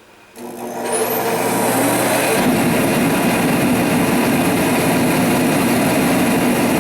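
A Sears forced-air torpedo heater starting up. Its blower motor spins up with a rising whine about half a second in. Around two and a half seconds in the sound thickens into a steady loud rush as the burner lights, though the owner says its air still needs adjusting.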